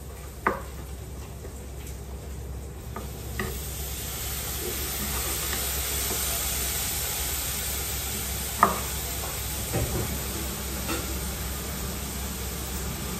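Food sizzling in a frying pan, a steady hiss that grows louder a few seconds in. A few sharp knocks sound over it, the loudest about two-thirds of the way through.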